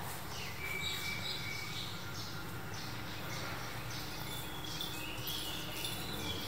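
Puppy whimpering: faint high-pitched whines, a short one about half a second in and a longer wavering one from about four and a half seconds on.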